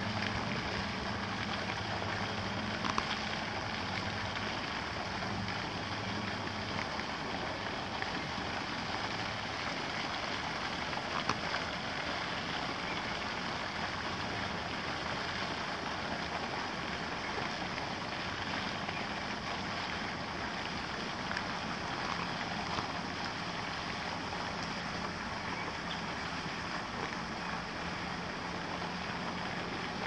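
Steady outdoor background rush with a low hum that fades after about ten seconds, and a few faint ticks.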